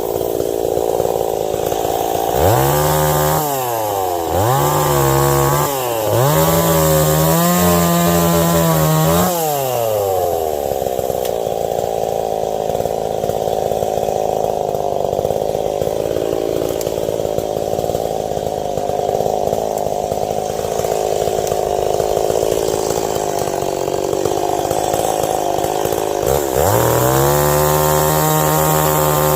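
Ported Stihl 026 two-stroke chainsaw revving up in three short bursts over the first ten seconds, then idling for about fifteen seconds before revving up again near the end.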